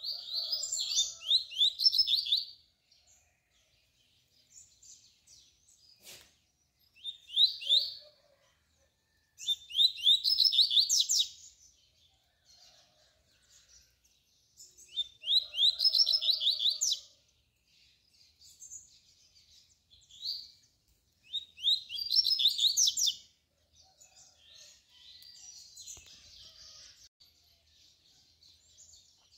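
A double-collared seedeater (coleiro) singing its tui-tui song, about seven short phrases of fast, high, sliding notes with pauses between them. There is a single sharp click about six seconds in.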